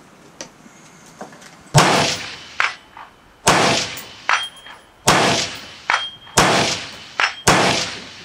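Rifle shots on a firing range: five loud shots, one every second and a half or so, each ringing out afterward, with a few fainter shots between them.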